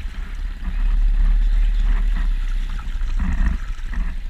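Honda GC160 single-cylinder mud motor running steadily at speed, pushing a kayak with two people aboard, with the rush of water from its wake.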